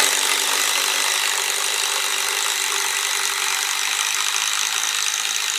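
DeWalt 20V XR cordless impact driver boring through a wooden beam with a spiral-fluted hex-shank auger bit. The motor runs at a steady speed, with a high whine over the bit chewing through the wood.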